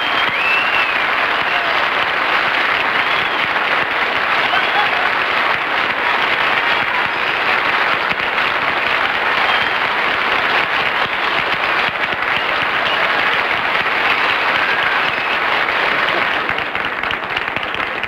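Studio audience applauding, long and steady: the prolonged applause that greets the mystery challengers.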